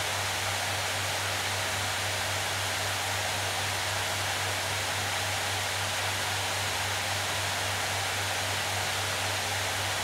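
Acer Predator Helios 16 gaming laptop's cooling fans spinning hard in auto mode under heavy GPU load: a steady, even rush of air with a low hum beneath it.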